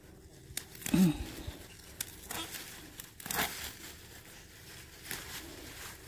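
Leafy plants rustling and crackling as they are handled and brushed right against the microphone, with a few sharp crackles scattered through.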